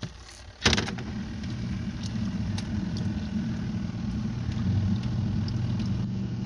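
Small portable Costway washing machine's wash motor starting with a clunk about a second in, then running with a steady low hum as it churns a full load, and stopping suddenly near the end, pausing between agitation spins.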